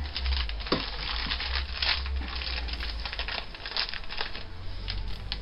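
Plastic wrapper of a Cadbury Dairy Milk chocolate block crinkling and crackling in irregular bursts as it is pulled open by hand, over a steady low hum.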